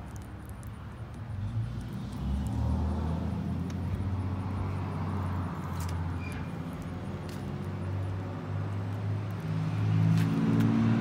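An engine running with a low, steady hum that grows louder a couple of seconds in and shifts slightly in pitch, with a few sharp metallic clinks over it, about six seconds in and again near the end.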